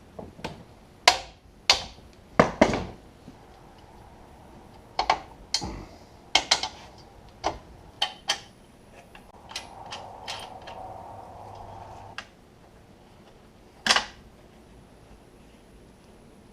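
Hand tools and metal seat parts being handled: a string of sharp clicks, clinks and knocks at uneven intervals, with a few seconds of steadier scraping or rasping noise about ten seconds in.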